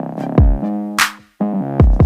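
Electronic background music with a drum-machine beat: deep bass kicks that fall in pitch, a sharp clap about halfway through, and held synth tones. The music drops out briefly just before the last kick.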